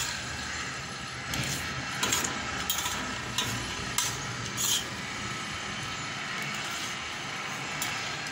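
Steel spoon scraping and clinking against a metal plate while scooping up rice, a few sharp clicks in the first half over a steady background noise.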